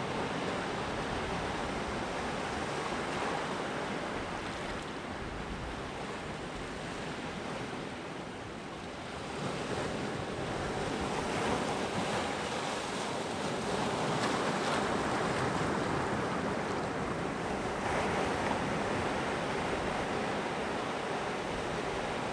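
Sea surf breaking and washing on the shore in a continuous rush. It eases off about a third of the way through, then builds again as fresh waves come in.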